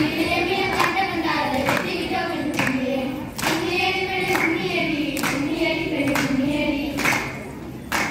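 A group of girls singing a folk song together, unaccompanied, with a sharp clap keeping the beat a little under once a second; the singing dips near the end.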